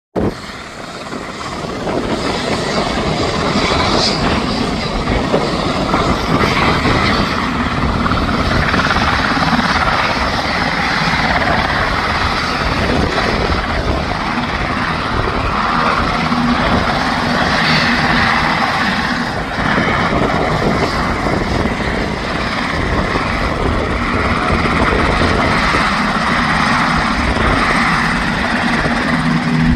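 Sikorsky MH-60T Jayhawk helicopter, with its twin General Electric T700 turboshaft engines and main rotor running on the ground, makes a loud, steady drone. A low hum in it comes and goes.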